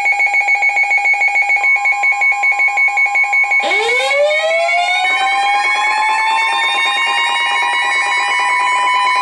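Emergency alert tones ahead of a severe thunderstorm warning: a rapidly pulsing electronic alarm of two steady pitches, joined about three and a half seconds in by a siren-like tone that rises and then holds steady.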